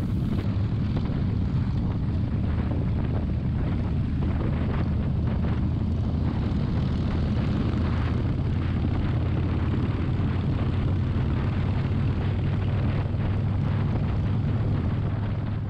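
Motorcycle running steadily at highway speed: a low, even engine drone under heavy wind rush on the rider's microphone. It cuts off suddenly at the very end.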